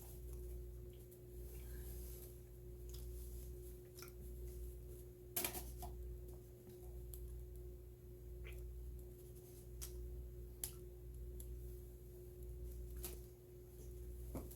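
Faint chewing and mouth sounds of someone eating a peanut butter and jelly bagel, with a few sharp clicks, the loudest about five seconds in, over a steady low hum.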